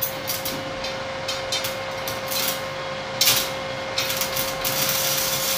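Stick (MMA) arc welding on stainless steel with a compact 200 A inverter welder set to 150 A: scattered crackles as the arc strikes and catches, settling about four seconds in into a steady, dense crackling hiss.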